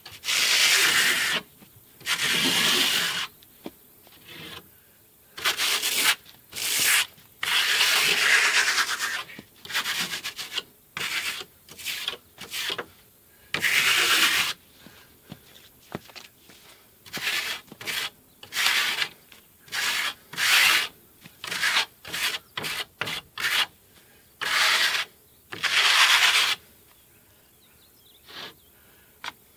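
Repeated rasping, rubbing noises in irregular strokes, some short and some over a second long, with brief pauses between them.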